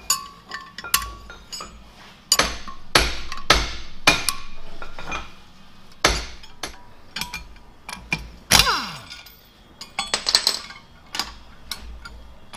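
Metal clinks and clanks of a wrench and steel bolts as the bolts are taken off a cast iron pump housing, with a louder stretch of scraping clatter between about two and five seconds in.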